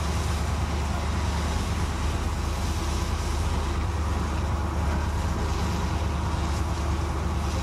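An engine drones steadily under a constant rushing hiss, with no change in level throughout.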